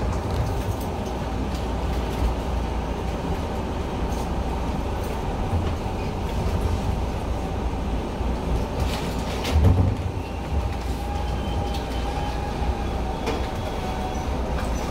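Enshu Railway 2000 series electric train, heard from inside at the front, rolling slowly into its terminus platform: a steady low rumble with a faint steady hum, and a single thump about two-thirds of the way through.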